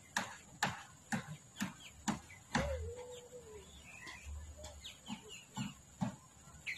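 Chicken clucking in a steady series of short clucks, about two a second, with one longer wavering call about two and a half seconds in.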